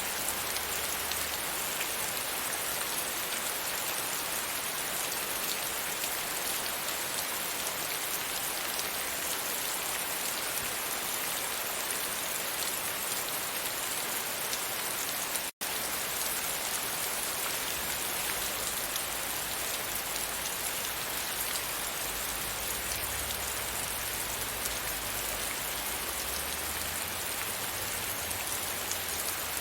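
Steady rain falling against a window, an even, continuous wash of drops. The sound cuts out completely for a split second about halfway through.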